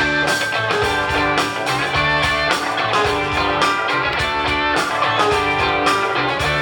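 Live rock band playing an instrumental passage: guitars over drums keeping a steady beat.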